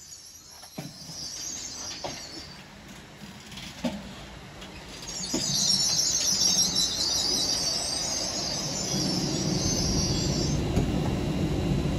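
LNER Azuma train running past along the platform, its wheels knocking over rail joints a few times, with a high hiss or squeal from the wheels and rails. It gets louder about halfway through, and a low rumble builds near the end before the sound cuts off suddenly.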